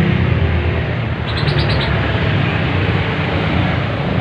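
Steady traffic rumble, with a quick run of high chirps about a second and a half in.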